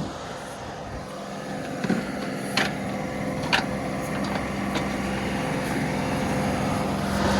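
John Deere 2038R compact tractor's three-cylinder diesel engine running steadily while it powers the 270B backhoe, with a few sharp knocks about two to three and a half seconds in as the bucket teeth are chopped down into the stump's roots.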